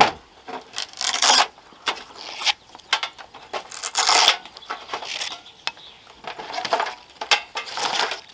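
Thin titanium stove parts clinking and scraping, with packaging rustling, as they are lifted out and handled, in a string of short, irregular bursts.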